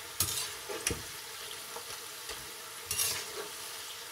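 Namak para dough pieces deep-frying in hot oil with a steady sizzle, while a spoon stirs and scrapes them through the pan in a few short strokes: about a quarter second in, just before a second in, and about three seconds in.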